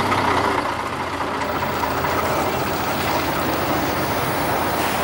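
Diesel bus engines running steadily as one bus pulls away and another draws up. The sound is a little louder in the first second.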